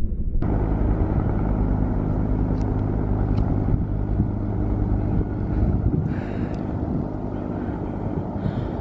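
Helicopter running with a steady low drone.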